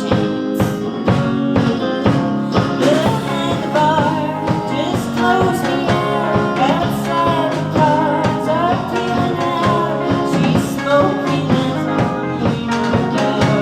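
Live indie rock band playing a song: drum kit keeping a steady beat under guitars and bass, with a sung melody over them from about three seconds in.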